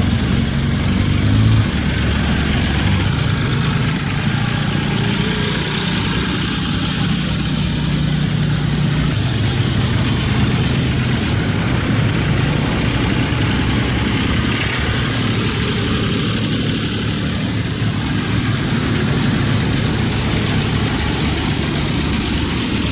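Engines of vintage farm tractors running at low revs as they drive slowly past one after another. The engine pitch steps slightly a few times as each tractor comes by.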